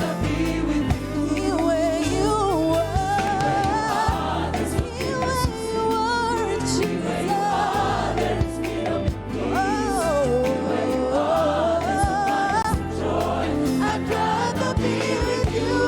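Live gospel worship music: a lead voice with wavering, drawn-out melismatic lines over choir, keyboard and drums with a steady beat.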